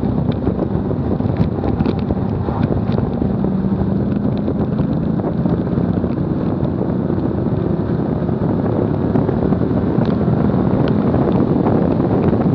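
Wind blasting a low bumper-mounted camera's microphone on a car at track speed, with tyre and road noise and a faint engine note underneath. The engine note rises in pitch about halfway through as the car accelerates out of a slow corner.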